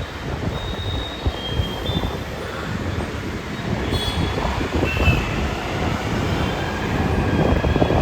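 Metro train running on its track: a steady rumble with short, high-pitched wheel squeals coming and going.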